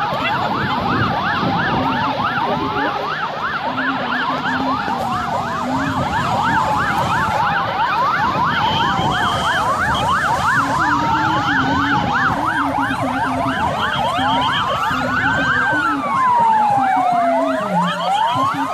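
Several emergency-vehicle sirens sounding together: fast yelping sweeps overlapped by slower rising-and-falling wails, which grow more prominent in the second half. Short steady tones break in now and then.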